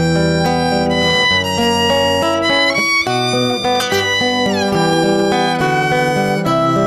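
Instrumental break of a ballad: a violin carries the melody in held notes, with a falling slide about four and a half seconds in, over guitar accompaniment.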